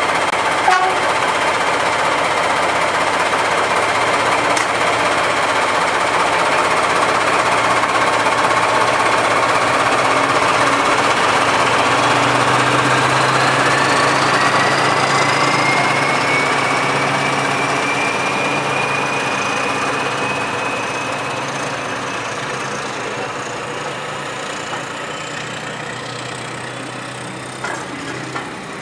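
A pair of Class 14 diesel-hydraulic locomotives with Paxman Ventura engines working hard as they pull a train away, a whine rising steadily in pitch as they gather speed. The coaches then roll past and the sound slowly fades, with a few sharp clicks near the end.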